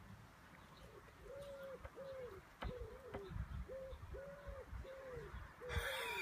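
A pigeon cooing: a steady run of soft, evenly spaced, arched coos about half a second each, starting about a second in. A burst of a boy's laughter comes near the end.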